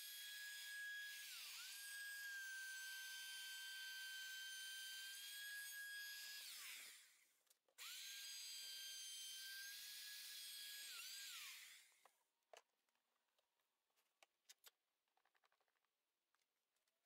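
Handheld router with a flush-trim bit trimming the edge of Formica laminate: a high, steady motor whine that dips briefly in pitch when the bit bites into the laminate. It is switched off about seven seconds in and restarted a moment later. After a few more seconds it is switched off again and winds down, and a few faint clicks and knocks follow.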